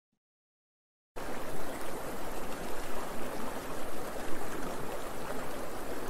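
Running water of a shallow stream, cutting in suddenly about a second in after near silence and then flowing steadily.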